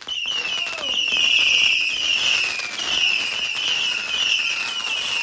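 Whistling firework cake firing a rapid run of shrill whistles, about two a second, each falling slightly in pitch and overlapping the next, with sharp cracks scattered among them.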